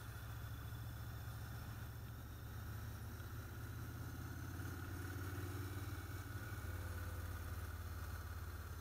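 Motorcycle engine running steadily while riding, a low hum that gets a little louder around the middle.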